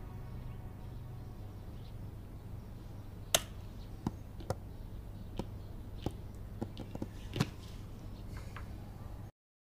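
Scattered clicks of laptop keys and trackpad, about eight irregular taps over a few seconds, over a low steady room hum; the sound cuts to silence near the end.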